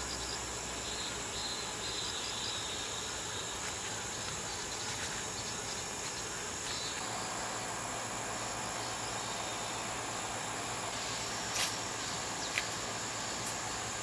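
Insects trilling steadily in summer greenery, a continuous high-pitched drone, with a couple of faint clicks near the end.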